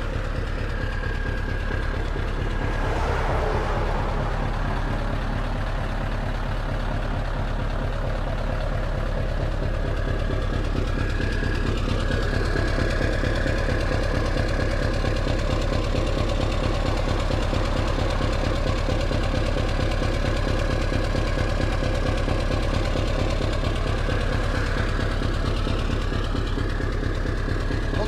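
Scania 164L 580's V8 diesel engine idling steadily through open straight-through exhaust pipes, a deep, even pulsing run.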